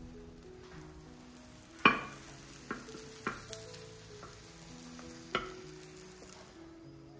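Potato omelette frying in a pan with a steady sizzle that fades out near the end. A utensil clicks against the pan several times, loudest about two seconds in.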